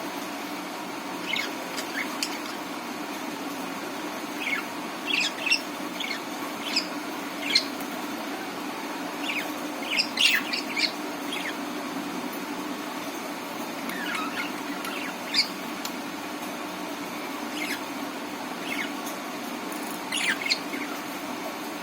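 Budgerigars chirping in short, scattered calls and quick warbles over a steady low background hum.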